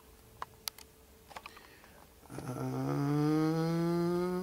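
A man's long hum held for about two seconds, its pitch slowly rising, preceded by a few faint clicks from handling.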